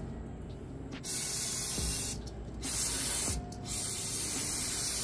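Aerosol cleaner sprayed onto a truck wheel bearing to wash it, in three hissing bursts, the first about a second in.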